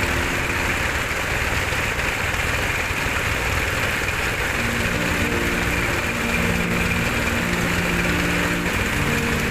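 Colt Diesel 100 PS engine running steadily under load, powering a well-drilling rig, with a low, even throb. Background music comes in about halfway.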